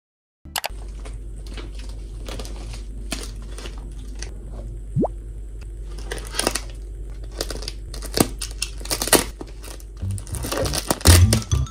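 Crinkling of a plastic mailer wrapped in clear packing tape as a parcel is picked up and handled, a scatter of short crackles over a low steady hum. Music with a beat comes in near the end.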